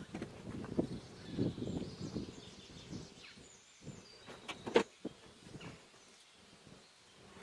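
A wooden hive frame is set down into a beehive box with irregular soft knocks and scrapes of wood. Nearly five seconds in there is one sharp click of a metal hive tool against the frame top bars.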